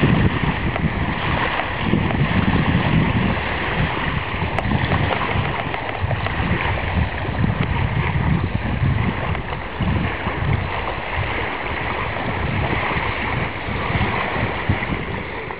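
Wind buffeting the microphone in uneven low gusts, over the steady wash of small waves breaking on a sandy lakeshore.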